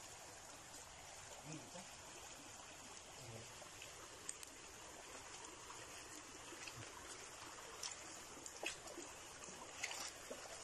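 Faint running water trickling over rock, with a few light clicks in the second half.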